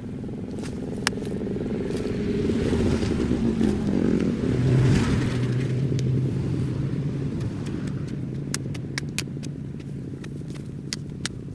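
A motor engine hums past, swelling to its loudest about halfway through and then fading. Sharp clicks, more of them near the end, fit a hoe striking clods of earth.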